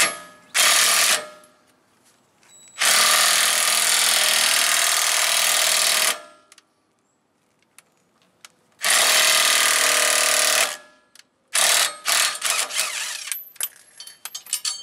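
Impact wrench hammering in four bursts, the longest about three seconds. It runs a lug nut down over flat washers and spacers to pull a new wheel stud straight into the hub flange. After the last burst, metal clinks lightly as the washers and spacers are handled.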